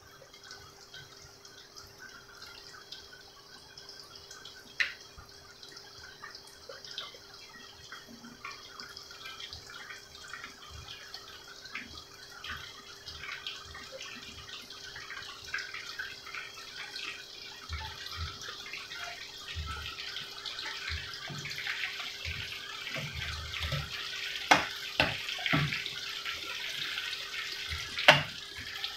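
Panko-coated eggplant sticks frying in hot oil in a wok: a dense crackling sizzle that grows louder toward the end. A few sharp knocks of a wooden spatula against the pan cut through it, the loudest near the end.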